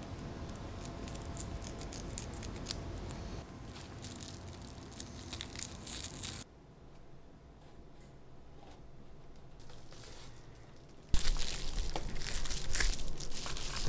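Reflectix foil-bubble insulation panels crinkling and rustling as they are handled and fitted. The crackling fades to a quiet stretch about halfway through, then comes back much louder near the end.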